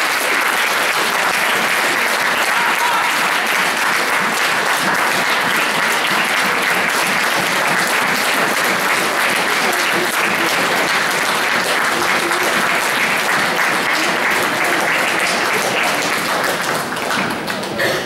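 Audience applauding, steady dense clapping that thins out near the end.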